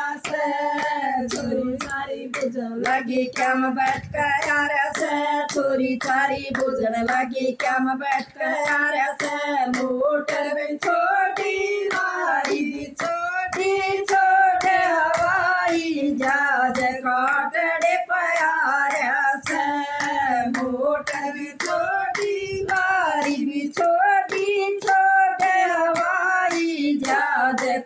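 Three women singing a song together in one voice, keeping time with steady hand clapping.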